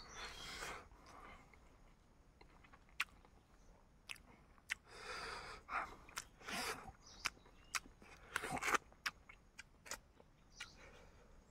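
A person chewing and biting into cooked chicken, mouth sounds with many short sharp clicks and several louder bursts of chewing and crunching.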